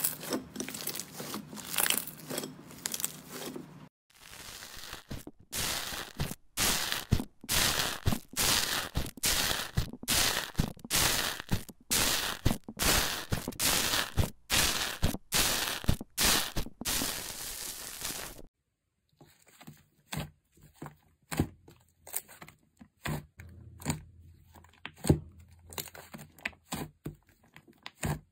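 Slime being squeezed and pressed by hand, giving wet squishes and dense runs of crackling pops and crunches as a bubbly green slime is poked. About two-thirds of the way through it stops briefly, then gives way to softer, sparser sticky clicks as a thick fluffy slime is kneaded.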